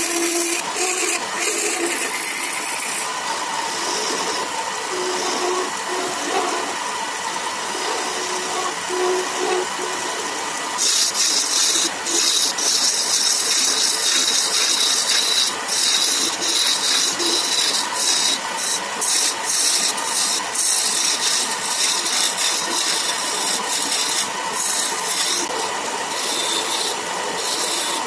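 Wood lathe running while turning tools cut a spinning wooden spindle: lighter cuts at first, then from about eleven seconds in a loud hissing shear as a gouge peels off shavings in quick repeated passes.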